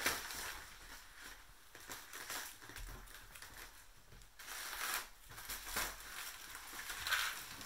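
Crinkling and rustling of a large foil number balloon being grabbed, dropped and lifted by a toddler's hands, in several separate bursts.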